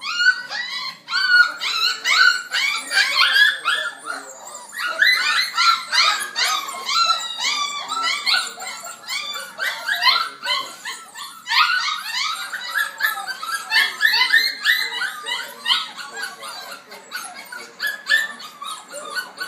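A litter of six-week-old goldendoodle puppies crying all at once, many overlapping high-pitched whines, yips and squeals, loud and almost continuous, thinning out near the end. The puppies want their mother.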